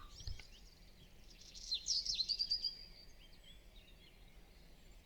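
Faint bird calls: a quick run of high chirps and short sweeping whistles, lasting about a second and a half, starting about one and a half seconds in.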